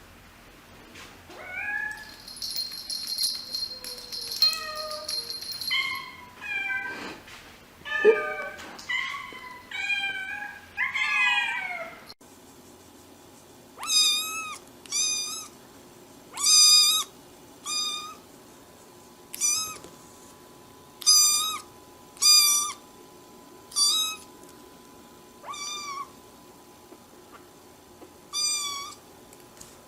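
Domestic cats and kittens meowing. First comes a jumble of varied mews, some rising and some falling in pitch. About twelve seconds in, the recording changes to one cat giving about a dozen short, high mews, one every second or two.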